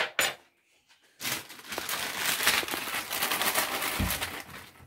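A plastic bag of cookies crinkling as it is handled, for about three and a half seconds, with a soft thump near the end.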